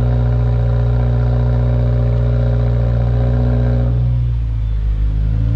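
Subaru WRX turbocharged flat-four boxer engine idling after a cold start, heard at the tailpipes through an aftermarket ETS cat-back exhaust: a steady low rumble, kept light by the car's equal-length headers. About four seconds in, the note dips and softens briefly, then steadies again.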